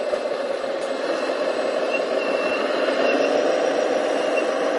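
Radio-controlled scale MAN TGA truck driving and turning on loose dirt: a steady mechanical hum, with a few faint, short high tones.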